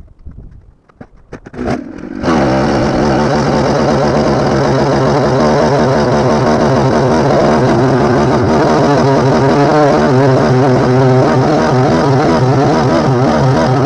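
Husqvarna 372 XP two-stroke chainsaw being pull-started: a few clicks and a short sputter, then about two seconds in the engine catches and runs loud and steady.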